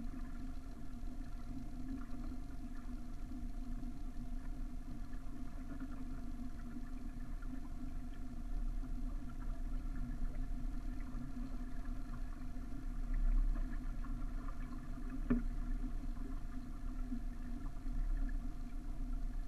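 Steady noise aboard a small sailboat under way: water moving along the hull and wind on the microphone, over a constant low hum, with one sharp knock about fifteen seconds in.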